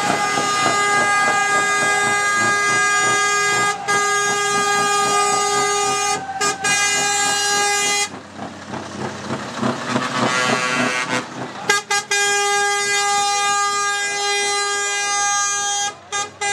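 Truck air horn blowing long, steady blasts: one held for about eight seconds with two brief breaks, then, after a pause of about four seconds, another held for about four seconds.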